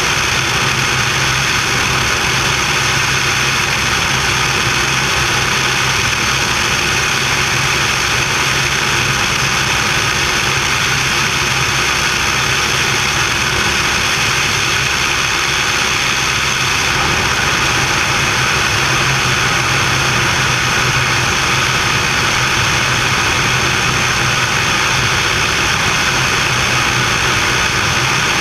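Small fixed-gear aircraft's engine and propeller droning steadily on the landing approach. It is heard through a camera mounted outside under the wing, with air rushing over it.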